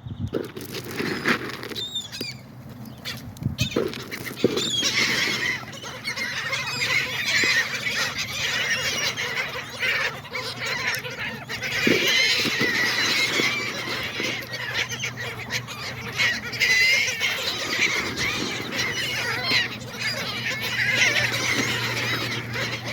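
A flock of seagulls calling over one another in a dense, continuous squabble of squawks and squeals, building up after the first few seconds.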